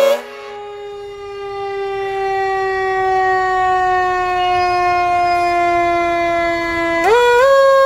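Fire engine siren sounding as the truck drives slowly past: one long tone that slowly falls in pitch, then winds back up about seven seconds in.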